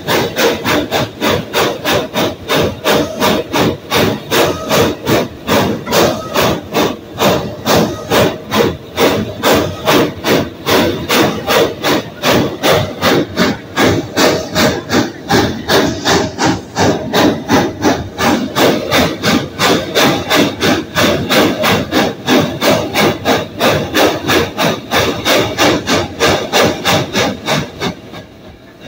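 1937 Porter 0-4-0T saddle-tank steam locomotive's exhaust chuffing from the stack as it works under steam, an even beat of about three chuffs a second. The chuffs die away near the end as steam is shut off.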